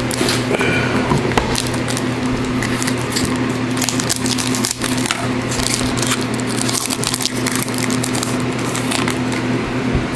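Plastic wrapping crinkling and tearing and cardboard being handled as a sealed trading-card box and pack are opened, a dense run of irregular crackles, over a steady low electrical hum.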